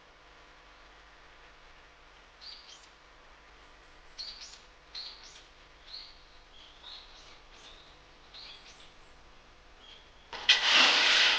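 Small birds chirping: a scattered series of short, high calls, faint against a quiet background. About ten seconds in, a much louder, rough sound breaks in.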